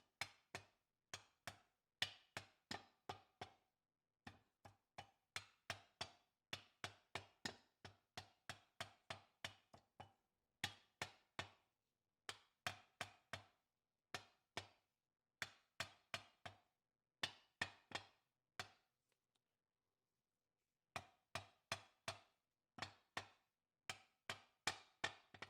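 Leather mallet tapping a bearing outer race into a Dana 18 transfer case: quick, light blows, several a second, in runs with short pauses between, and a pause of about two seconds near the end.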